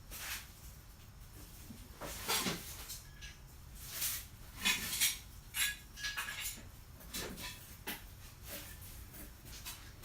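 Steel C-clamps clanking against one another as they are handled and set down, a string of irregular metallic clinks.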